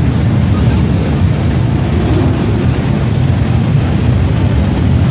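Steady low rumble of many motorcycle engines running in slow, crowded street traffic.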